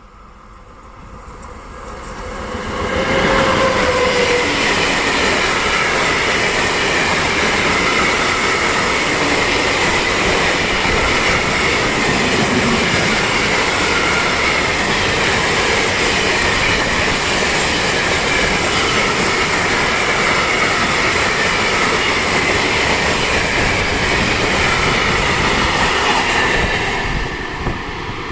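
ZSSK Cargo class 240 electric locomotive hauling a train of Eas/Eaos open freight wagons passing close by. The sound builds over the first three seconds as the locomotive arrives, then holds as a loud, steady rumble and clatter of the wagons' wheels on the rails, with a high squeal running through it. It drops off near the end as the train goes by.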